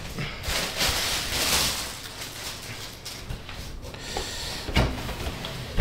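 Crinkly plastic packing film rustling as hands dig through a cardboard shipping box, with cardboard scraping and a soft knock near the end.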